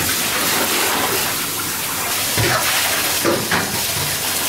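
Kitchen tap running hard into a stainless steel sink, a steady rush of water. Two short knocks come about halfway through.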